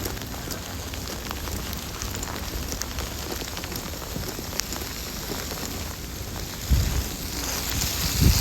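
Steady hiss of precipitation in a snowstorm, with scattered small ticks as it strikes nearby surfaces. Near the end, wind starts buffeting the microphone with low thumps.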